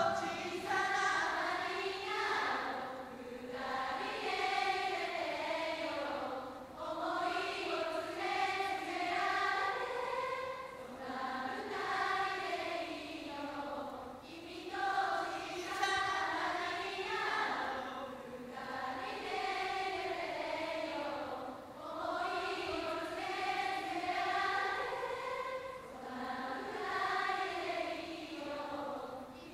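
Large concert audience singing a slow melody together in unison, a crowd sing-along to the song's chorus, phrase after phrase with short breaths between.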